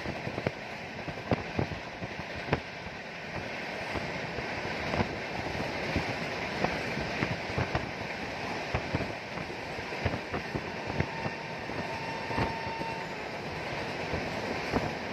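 Two trains passing each other on adjacent tracks, heard from one of them: a steady rumble and rush of steel wheels on rail with frequent sharp clicks from the rail joints. It grows louder about four seconds in as the freight wagons go by close alongside.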